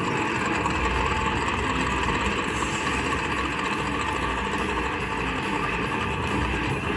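Sons of Anarchy slot machine's wheel-bonus sound effect: a steady engine-like rumble while the bonus wheel spins.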